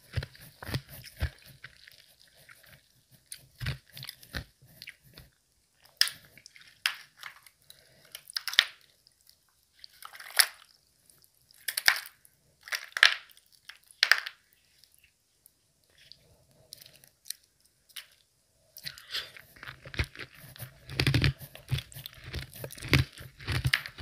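Person biting and chewing semi-melted ice with a medium-soft crunch. Steady chewing at first, then separate crunching bites about a second apart, a pause of a few seconds, and dense chewing again near the end.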